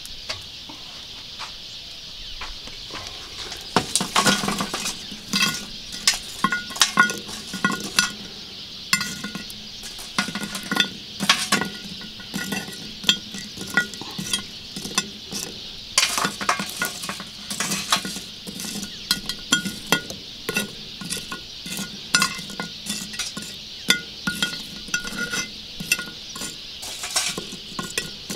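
Lit charcoal briquettes clinking as they are tipped from a metal chimney starter and set one by one on the lid of a cast-iron Dutch oven, knocking against the iron and against each other. The irregular clinks begin about four seconds in, over a steady high hiss.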